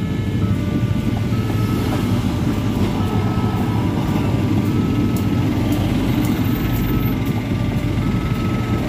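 A passing train's steady low rumble under a level-crossing warning alarm that repeats a two-tone electronic signal, alternating between two close pitches roughly every two-thirds of a second.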